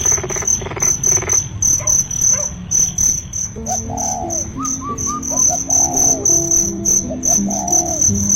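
Crickets chirping steadily in a fast, continuous pulse, over soft background music whose melody becomes clearer about halfway through.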